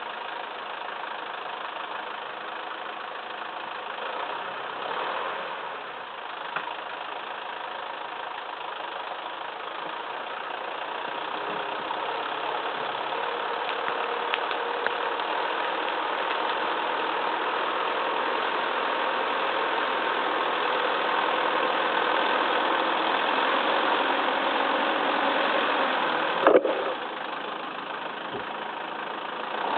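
Massey Ferguson 2635 tractor's diesel engine running steadily, growing gradually louder through the middle, with a sharp knock near the end.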